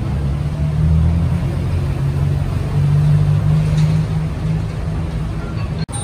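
Road traffic at a busy city intersection: a steady low rumble of passing car engines, which cuts off abruptly near the end.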